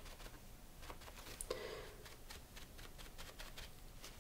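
A crumpled paper towel rubbed and dabbed over a gel printing plate, working in wet acrylic paint: faint papery rustling and scrubbing strokes, one a little louder about a second and a half in.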